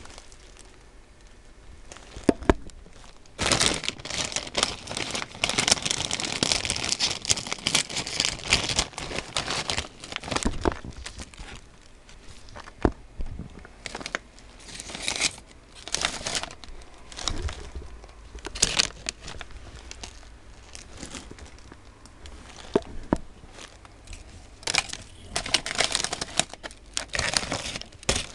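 Plastic snack bag of fried shrimp-salt rice crackers crinkling as it is handled and opened. There is one long spell of dense crinkling in the first third, then shorter bursts with pauses between them.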